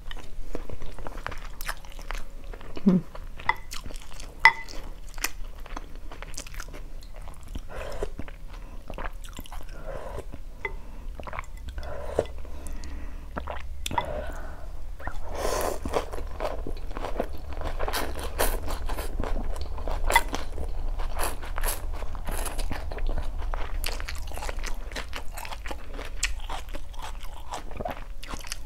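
Close-up eating sounds of phở: chewing and crunching of raw bean sprouts with noodles, with many small clicks and wet mouth noises, busier in the second half.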